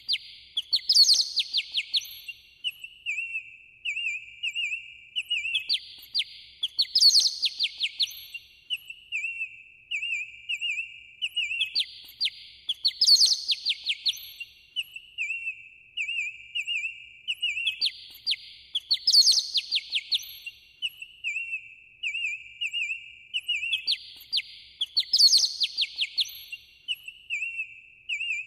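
Songbird chirping, trilling and whistling, with the same phrase of calls repeating about every six seconds.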